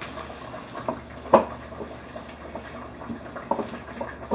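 Long wooden stick stirring and pressing thick asida flour dough in a steel pot, with wet stirring sounds and irregular knocks of wood against the pot, the loudest about a second and a half in.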